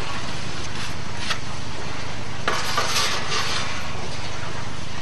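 Metal baking tray of ka'ak handled at a small oven, with light clatter and a brief scraping stretch around the middle, over a steady low hum.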